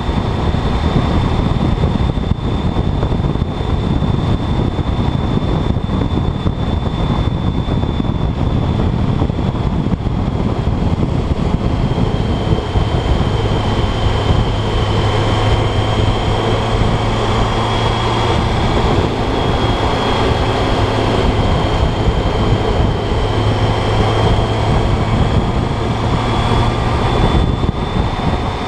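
Motorcycle riding at a steady speed: the engine's steady hum under heavy wind noise on the microphone, with a thin high whine throughout. The engine note stands out more clearly from about twelve seconds in.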